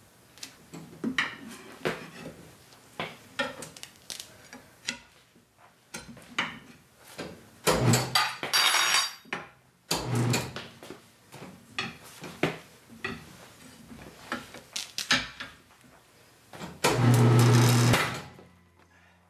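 Irregular metal clanks and knocks of tire bars against the wheel and the tire changer as the stiff bead of a low-profile run-flat tire is forced over the rim. Twice the Harbor Freight semi-automatic changer's turntable motor runs with a steady hum for about a second, about eight seconds in and again, loudest, near the end.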